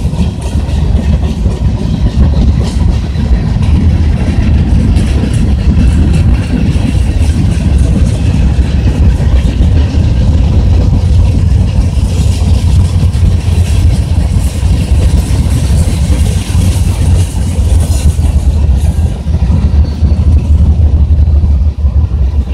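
Freight train cars (boxcars, covered hoppers and gondolas) rolling past, making a loud, steady low rumble of steel wheels on rail.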